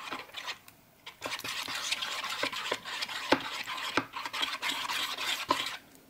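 Plastic stir wand stirring thickening slime in a plastic bowl, with many small clicks and pops. The mixture has just been activated and is turning goopy. There is a short lull about a second in, and the stirring stops near the end.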